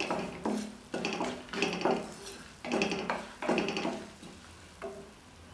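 Wooden spatula stirring and scraping whole spices around a kadai of hot melted butter, in repeated strokes that stop about four seconds in, with the butter bubbling underneath.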